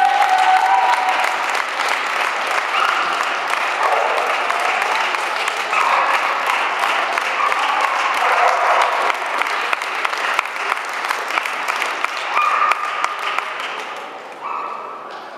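Audience applauding steadily, a dense patter of clapping with a few voices calling out over it; the clapping dies down near the end.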